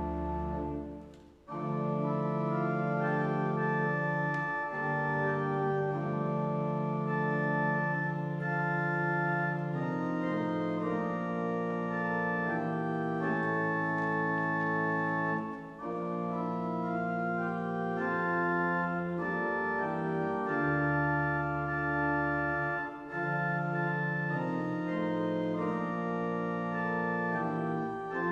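Organ music played in sustained chords, with a brief silence about a second and a half in and short breaks between phrases around the middle and near the end.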